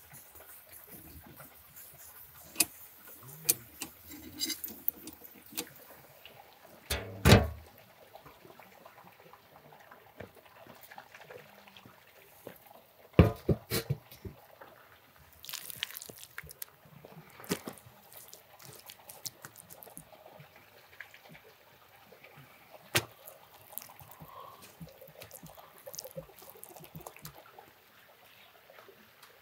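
Scattered knocks and clinks as a round metal lid and a brick are set over the mouth of a clay tandoor. A dull thump comes about 7 seconds in, and a sharp metallic clank about 13 seconds in is followed by a few smaller clicks.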